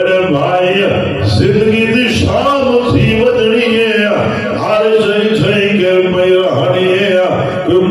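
A man's voice chanting in a melodic, sing-song style into a microphone, holding and bending long notes, as in a preacher's recited verse.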